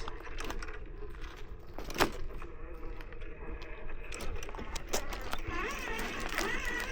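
RC4WD Blazer scale rock crawler picking its way over rocks: a faint steady whine from its electric motor and gears under small clicks and knocks as the tires and chassis work against the stone, with one sharper knock about two seconds in.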